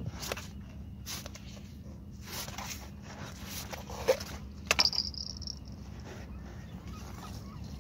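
Handling noise as a small shark is worked free of the hook: scattered clicks and rustles, a sharp knock about four seconds in and a brief high squeak just after, over a steady low hum.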